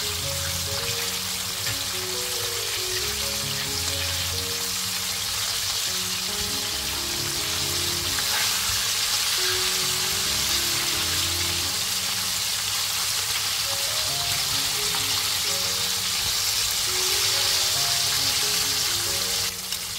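Breaded chicken wings deep-frying in hot oil in a wok: a steady bubbling sizzle, with background music underneath.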